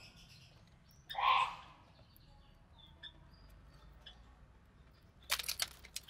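Budgerigar's short raspy call about a second in, a few faint chirps, then a burst of scratchy rustling and clicking near the end.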